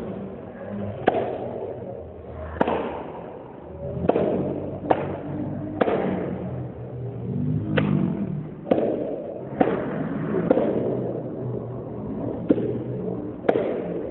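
A series of sharp knocks or claps, about a dozen at uneven spacing, roughly one a second, over background room chatter.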